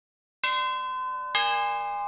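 Bell-like chime notes struck one after another about a second apart, each ringing on, the second lower than the first, after a moment of dead silence.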